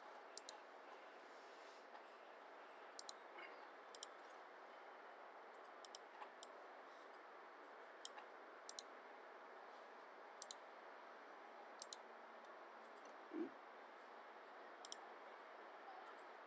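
Computer mouse button clicking: sharp, irregular clicks, many in quick pairs, over a faint steady hiss.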